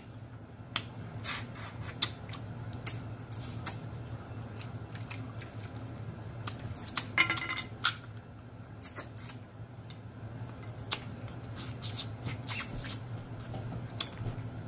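Eating boiled blue crabs up close: scattered small clicks and cracks of crab shell being picked apart by hand, with smacking mouth and finger-licking sounds, busiest about seven seconds in, over a low steady hum.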